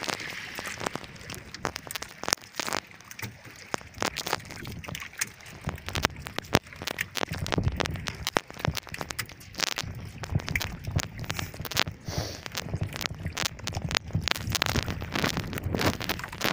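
Freshly caught small fish flapping in the wooden hull of an outrigger boat, a dense, irregular crackle of little slaps and taps.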